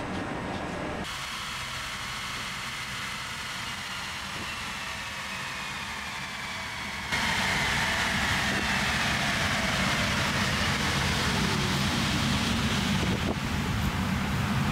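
A vehicle driving: steady road and wind noise with a faint whine falling slowly in pitch. The sound changes abruptly about a second in and again about seven seconds in, where it gets louder.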